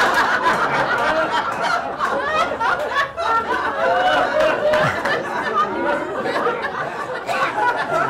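Audience laughing, many voices at once with chatter mixed in, loudest at the start and easing a little as it goes on.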